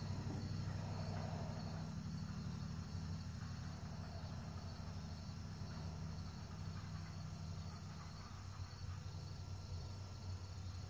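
Crickets chirring steadily in the background over a low, steady hum.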